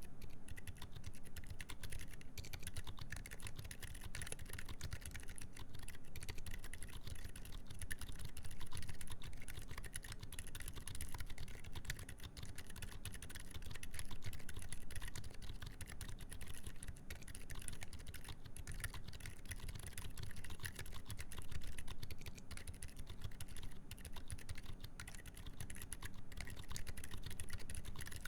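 Continuous fast typing on a Duck Octagon v3 mechanical keyboard with Gazzew U4 Boba silent tactile switches, a full FR4 plate and GMK keycaps: a dense, steady run of muted keystrokes.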